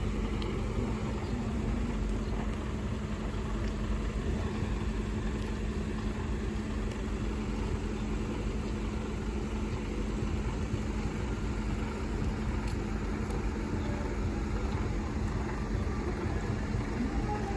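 Engines of a column of fire engines and an ambulance idling, a steady low hum.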